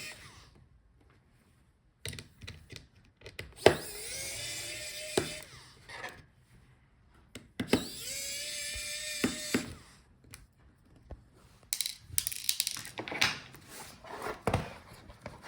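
Small electric screwdriver motor whining in two steady runs of about two seconds each, backing out the small screws of a laptop's hinge cover, followed by light clicks and taps of screws and tool being handled.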